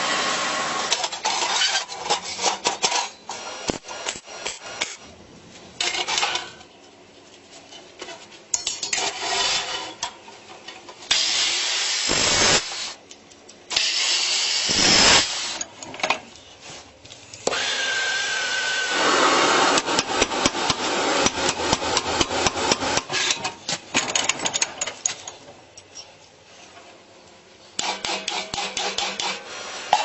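Metalworking tool sounds in quick succession, changing every few seconds: hissing abrasive blasting, runs of rapid, even scraping strokes on metal, and knocks of tools on steel.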